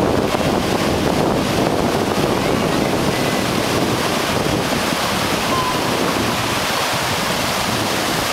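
Ocean surf breaking and washing through shallow water at the shoreline, a steady rush of water, with wind buffeting the microphone.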